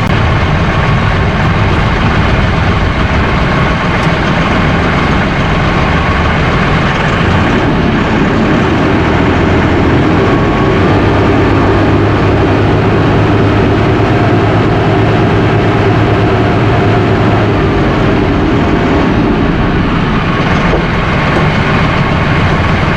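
Mahindra 5570 tractor's 2.7-litre three-cylinder diesel engine running steadily; its note changes about seven to eight seconds in.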